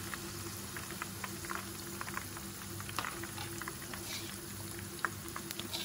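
Hot oil bubbling and sizzling around curry leaves and split green chilies deep-frying in a pan, with frequent small crackles and pops as the moisture in the leaves boils off.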